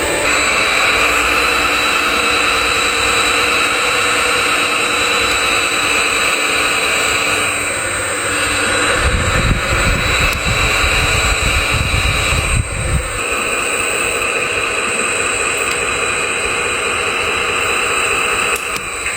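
A large engine running steadily with a high whine. Its low rumble grows stronger and rougher for a few seconds in the middle.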